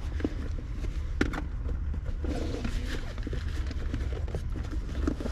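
Stiff canvas bag being handled and turned over: rustling fabric and light clicks from its buckles and straps, over a steady low rumble. A bird calls faintly in the background about halfway through.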